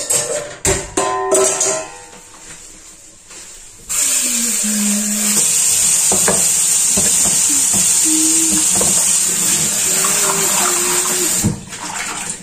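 Kitchen tap running in a steady, strong stream, starting about four seconds in and shutting off shortly before the end. Before it there are a few light knocks and clatter of kitchenware.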